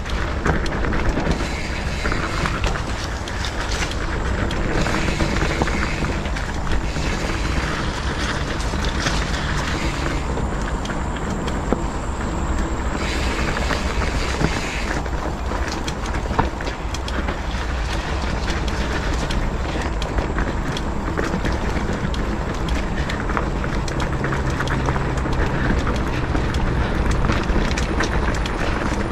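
Mountain bike riding over a dirt trail, heard from a bike- or rider-mounted action camera: a steady rush of wind on the microphone and a constant rattle and knocking from the bike over the bumpy ground.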